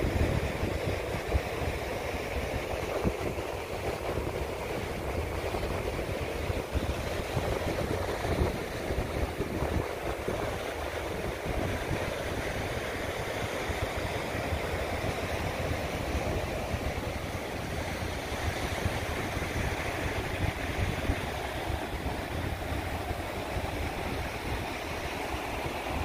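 Ocean surf washing onto the shore under a steady rushing noise, with strong wind buffeting the microphone in low, gusty rumbles.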